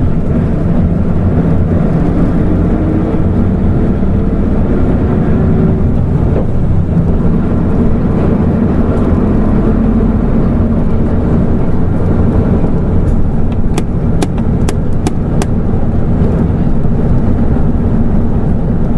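Hino LNG-HU8JMGP bus running, its engine and drivetrain making a steady low drone with a tone that rises as it pulls away a few seconds in. A run of sharp clicks sounds about fourteen seconds in.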